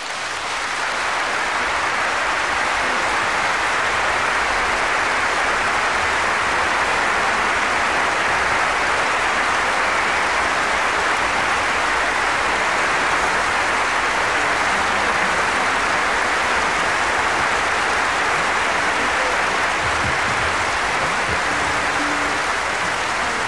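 Audience applause after a song, an even, steady clapping with no music under it.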